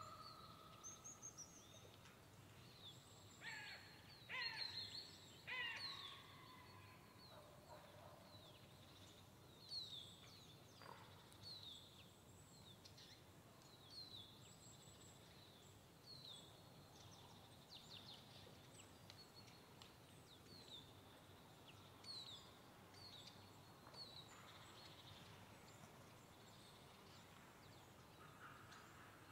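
Faint pine-forest ambience with small birds giving short, high calls that fall in pitch, every second or two throughout. A few louder, harsher bird calls come between about the third and sixth second.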